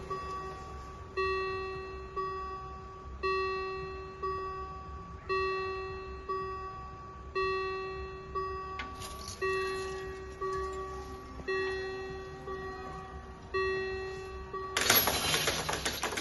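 Level-crossing warning bells of a BUES2000 crossing striking about once a second, each ring dying away, alternate strikes louder. Near the end the strikes stop and a loud rushing noise takes over for about two seconds.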